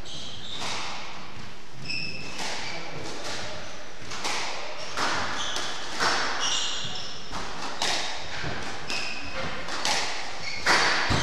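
A squash ball is struck by rackets and hits the walls in a series of sharp smacks about a second apart, with short squeaks from court shoes on the wooden floor between them. The loudest hit comes near the end.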